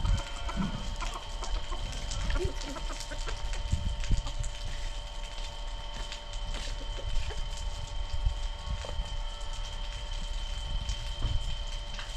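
Chickens clucking, with low knocks and thumps at intervals.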